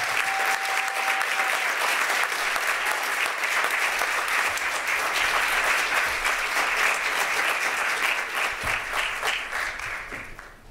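Seated audience applauding, a dense steady clapping that dies away near the end.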